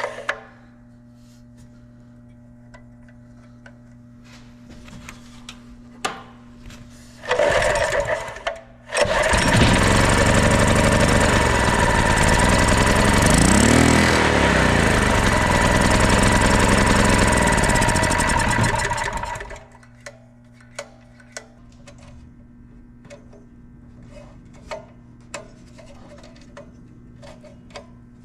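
Small generator engine, after its new carburetor is fitted: a short burst, then the engine runs loud and steady for about ten seconds and shuts off, followed by small clicks and knocks of handling.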